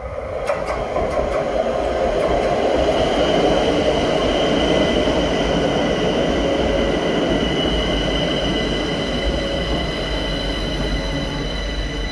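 A 1998 CAF-built Madrid Metro 6000-series electric unit pulling into a station, its wheels and running gear growing louder over the first few seconds as it draws alongside, then easing off slightly. A steady high-pitched squeal runs through it, with a few sharp clicks near the start.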